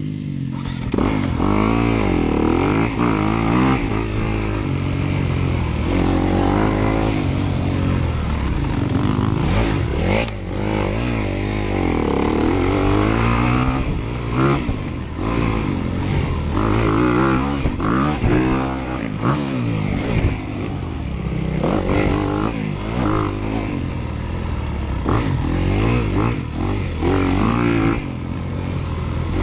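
Dirt bike engine being ridden hard, its pitch rising and falling over and over as the throttle is opened and backed off.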